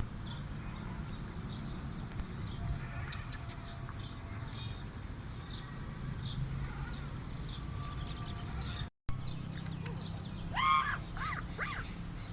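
Birds calling outdoors, with crows cawing a few times near the end, over a steady low hum.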